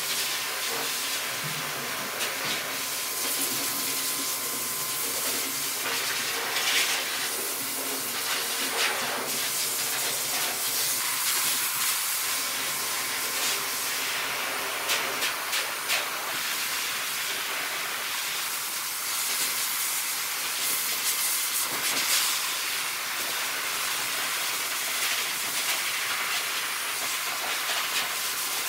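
Corded electric pet clippers running steadily, with a constant hissing buzz as the blade shears through a husky's thick coat.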